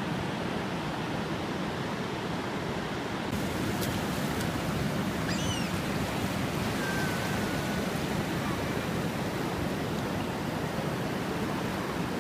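Ocean surf washing in on a flat sand beach: a steady rushing noise of small breaking waves and foam running up the shore.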